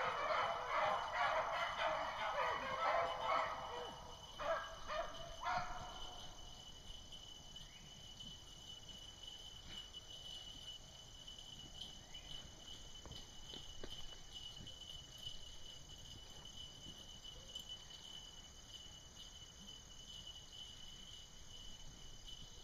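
A pack of beagles baying as they run a rabbit's trail, loudest in the first six seconds and then dying away. Insects trill steadily throughout.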